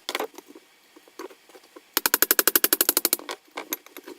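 Rapid metal-on-metal hammering as a stubborn threaded part on a 1965 Triumph TR6 fork leg is driven loose. A fast burst of about ten strikes a second lasts just over a second near the middle, with scattered single knocks before and after.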